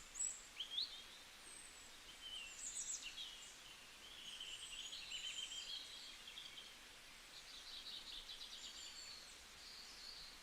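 Several songbirds calling and singing over one another: short high chirps, slurred notes and buzzy trills, over a faint steady hiss.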